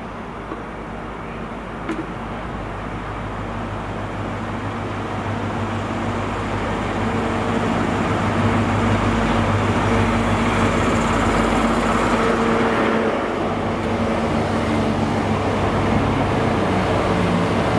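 Diesel High Speed Train with a Class 43 power car approaching and running in alongside the platform. The engine's steady, pitched drone grows louder over the first eight seconds or so, then the Mark 3 coaches roll past with wheel and rail noise.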